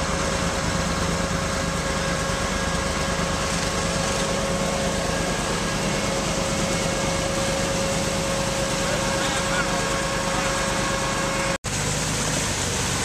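Small engine of a tracked amphibious ATV running steadily under load as it drives through shallow muddy water, with a steady whining tone. The sound cuts out for an instant near the end, then a similar amphibious ATV engine carries on.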